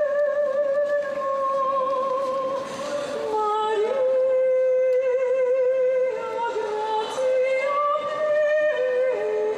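Music: a slow melody line of long, held notes with a wavering vibrato, stepping between pitches every second or two.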